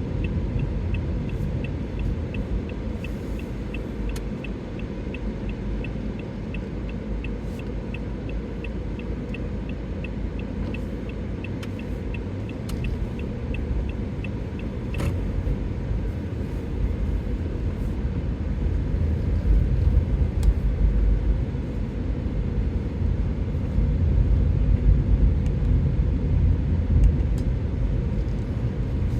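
Car cabin rumble from the engine and tyres while driving. For roughly the first half it carries a regular high ticking of about two to three ticks a second, typical of a turn-signal indicator, which then stops.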